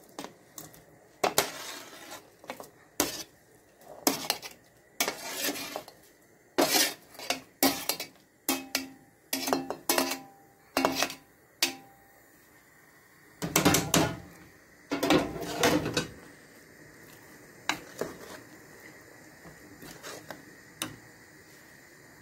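A metal spoon clinking and scraping against an enamel plate and a metal pot as fried vegetables are pushed off the plate into the pot, in a string of sharp clinks. Midway a louder clatter of the plate knocking against the pot for a few seconds, then a few light taps.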